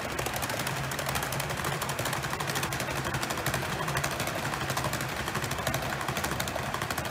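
HO-scale brass model trains running on the layout's metal track, led by an Endo E353 series limited-express model passing close by: a fast, steady clatter of wheel clicks over a low hum.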